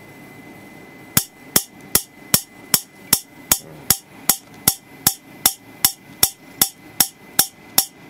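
Water-drop-triggered high-voltage spark gap firing repeatedly: a train of loud, sharp cracks at an even pace of about two and a half a second, starting about a second in. Each crack is a capacitor discharging across the gap as a falling water drop sets it off.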